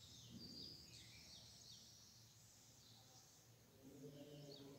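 Near silence: faint room tone with a scatter of short, faint high chirps.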